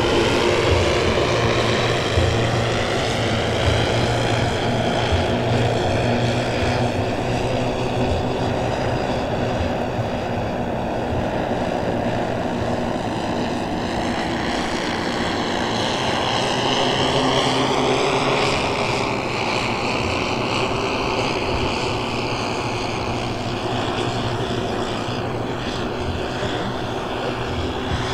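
Twelve 10 cc OS model engines of a 1:10 scale Dornier Do X RC flying boat running together in flight, a steady multi-engine propeller drone. Its pitch bends slightly up and then down about halfway through as the plane flies by.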